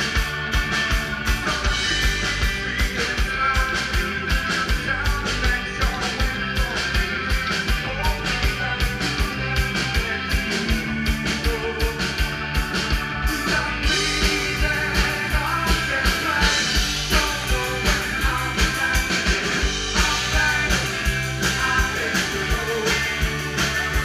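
Live rock band playing through a PA: a drum kit keeping a steady beat under electric guitars, with a male singer. About halfway through, the cymbals go from separate strokes to a steady wash.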